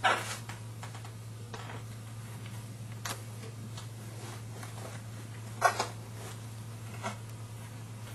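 Wire mesh cylinder and plastic lid being handled and fitted together: a few sharp clicks and knocks, the loudest right at the start and about five and a half seconds in, over a steady low hum.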